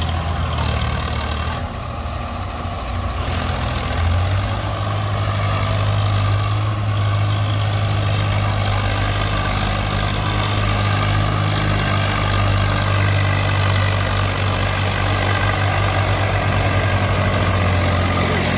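Heavy diesel engine running steadily, its pitch stepping up slightly about four seconds in and then holding.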